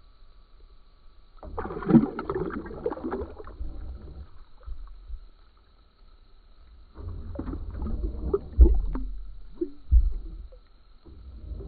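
Water splashing and sloshing as a bass is held in the lake by its lip and let go. It comes in two bouts, about a second and a half in and again from about seven seconds, with sharp splashes as the fish kicks free.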